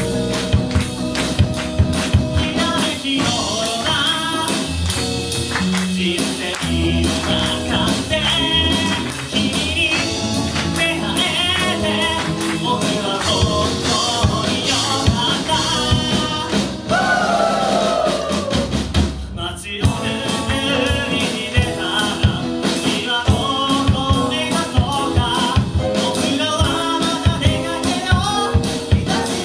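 Live band playing a song with a lead singer, heard from among the audience. A sliding note falls away just before the band cuts out briefly about two-thirds of the way through, then comes straight back in.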